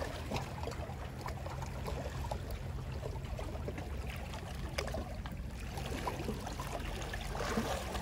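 Sea water lapping and trickling at the shore, with a faint steady low hum and scattered small ticks.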